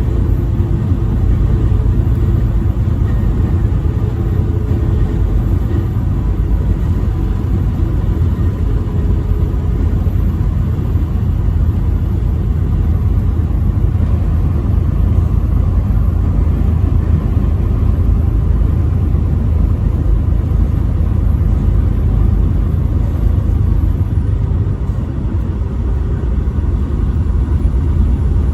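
Steady low rumble of engine and tyre noise from a vehicle cruising at highway speed, with no horn sounding.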